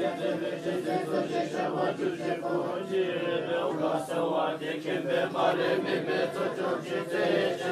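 Buddhist monks chanting prayers together, many voices overlapping in a steady, unbroken recitation.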